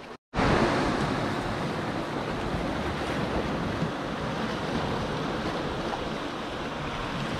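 Sea surf washing against the rocks below, a steady rushing wash of waves, with some wind on the microphone.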